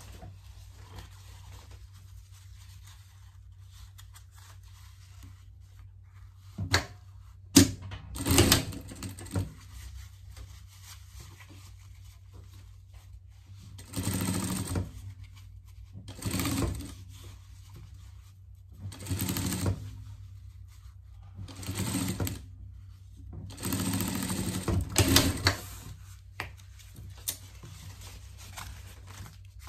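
Industrial sewing machine stitching raincoat fabric in short runs of about a second each, six or so separated by pauses, the first about eight seconds in. A couple of sharp clicks come just before the first run.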